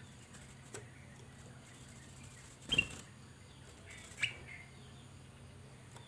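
Caged ruby-throated bulbul (kutilang emas) giving a few short, sharp chirps: the loudest a little under halfway through, another about a second and a half later.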